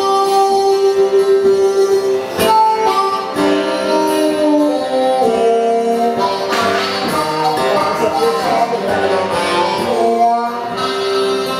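Live acoustic blues: a harmonica plays long held and bent notes over a plucked acoustic guitar.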